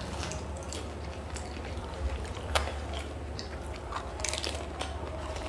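People biting and chewing pani puri, the crisp hollow puri shells crunching in short crackly clicks, with one sharper crunch about two and a half seconds in, over a steady low hum.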